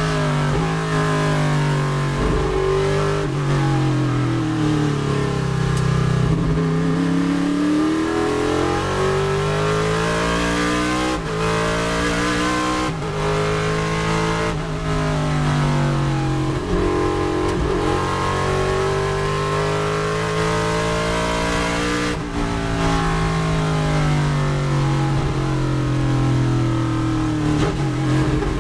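Chevrolet Nova race car's V8 engine at racing speed, heard from inside the cockpit. Its pitch climbs under throttle, broken by several quick gear changes about eleven to fifteen seconds in, climbs again, then falls away near the end as the car slows for a corner.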